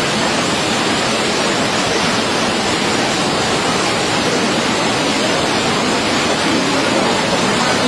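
Floodwater rushing out through the opened gates of Egypt's Aswan High Dam: a loud, steady rush.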